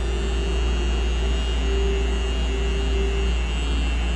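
Pink rotary permanent-makeup machine pen buzzing steadily while it tattoos an eyebrow.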